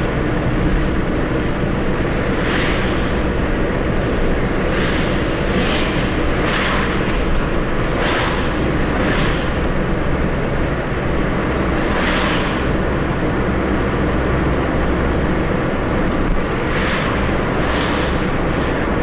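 A Mercedes-Benz car driving along a town road: a steady low rumble of engine and tyres, with a soft hiss swelling and fading again every second or two.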